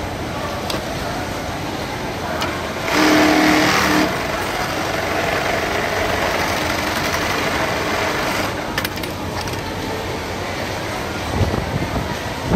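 Computer-controlled pattern sewing machine stitching a decorative ring on denim, over steady garment-factory machine noise. About three seconds in, a louder burst with a low steady hum lasts about a second.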